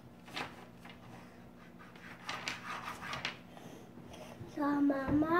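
A toddler's voice: a few faint breathy sounds, then near the end a drawn-out vocal sound that holds a note and then rises in pitch.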